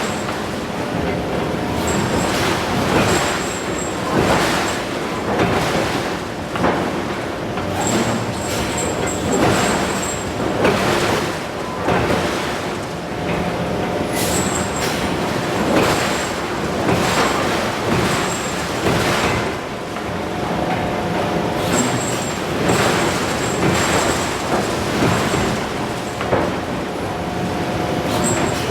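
A hydraulic forging hammer striking hot steel, blow after blow at about one a second, over the continuous din of forge-shop machinery.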